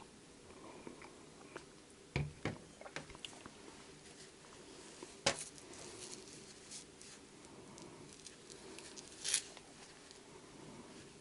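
Quiet handling noises at a worktable: two soft knocks about two seconds in, a sharp click a little after five seconds, and a brief rustle near the end, over faint room tone.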